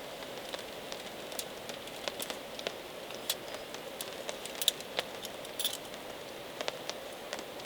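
Steady rain falling, with many irregular sharp ticks and pops scattered through it.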